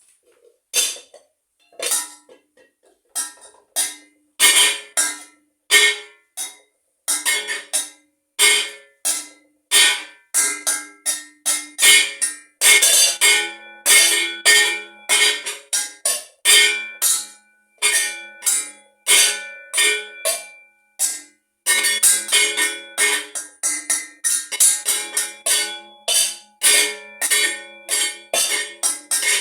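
Several bells struck in a quick, uneven rhythm, each strike ringing on at its own pitch. The strikes start sparse and soon come two or three a second, and about two-thirds through a lower bell's steady hum sounds under them.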